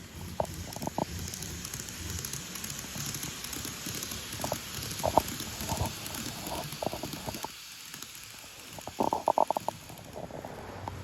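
Model train motor running with a steady hiss and a scattering of sharp clicks, with a quick run of clicks about nine seconds in; the motor has started making an abnormal noise, which the owner takes as a sign it is nearing retirement.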